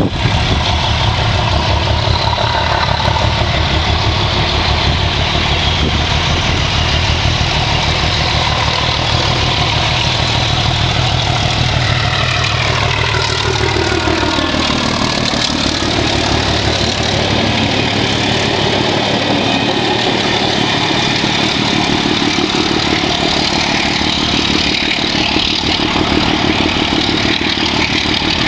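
Class 749 diesel locomotive 749.107, its six-cylinder ČKD diesel engine running loudly and steadily. About halfway through, the engine note falls and then climbs again.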